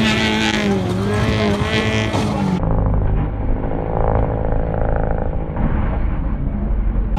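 Car engines running hard in an off-road race, revving up and down. About two and a half seconds in the sound cuts abruptly to a duller, muffled recording of engines with a steadier low rumble.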